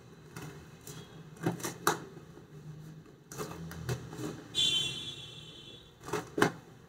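Scissors cutting through the packing tape on a cardboard box: a few sharp snips and clicks, with a brief high-pitched scrape about two-thirds of the way through as the blade slides along the taped seam.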